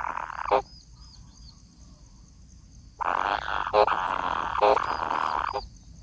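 Kingfisher nestlings giving harsh, raspy buzzing calls: a short burst at the start, then a longer rasping call of about two and a half seconds from about three seconds in.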